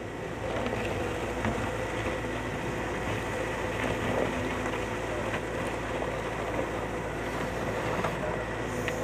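Caterpillar M313D wheeled excavator's diesel engine running steadily, with a steady whine over it and a few faint knocks.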